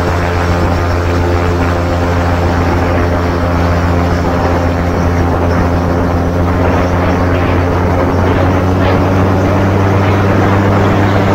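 AutoGyro MTOsport gyroplane's engine and pusher propeller running at takeoff power during the takeoff roll, a loud steady drone that grows slowly louder. A rushing of air joins it about halfway through as the gyroplane gathers speed.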